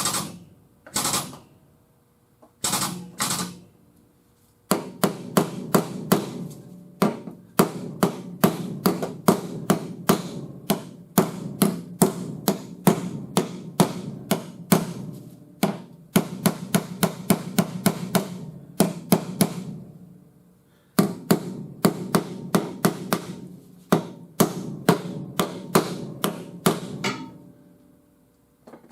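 Hammer blows on a car's quarter-panel sheet metal, struck in quick, regular runs of about two to three a second with short pauses between spells, over a steady lower hum. Two short bursts of noise come in the first few seconds.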